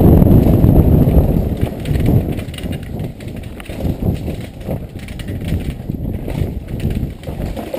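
Downhill mountain bike descending a rocky dirt trail at speed: a heavy low rumble of wind on the microphone over a rapid clatter of tyres, chain and suspension knocking over stones and roots. It is loudest for the first couple of seconds, then eases.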